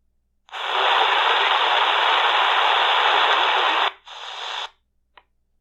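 C.Crane Skywave portable shortwave radio hissing static from its speaker between stations: a loud stretch of about three and a half seconds, then a shorter, quieter stretch. A single click follows.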